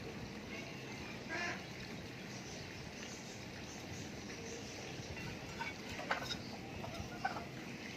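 Domestic ducks and other poultry calling: a handful of short, scattered calls over a steady background hiss.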